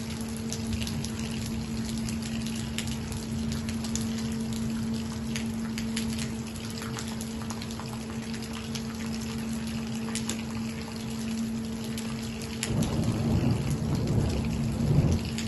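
Steady rain falling, with many close drops ticking on surfaces and a steady low hum underneath. Near the end a louder low rumble swells up.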